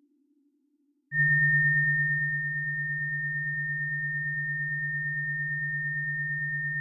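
Sustained electronic synthesizer tones in a progressive psytrance track. After about a second of near silence, a steady low tone with a thin high tone above it comes in and holds.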